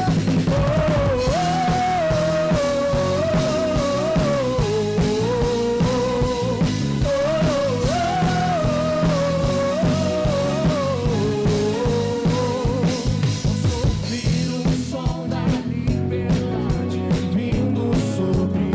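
A full rock band plays an instrumental passage between sung lines: a single gliding lead melody over drums and bass. The cymbals thin out near the end.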